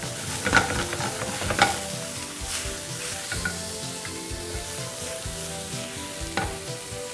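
Shrimp sizzling on very high heat in a nonstick frying pan, with a spatula and fork scraping and knocking against the pan as they are turned. The knocks come about half a second in, a second and a half in, and once more near the end.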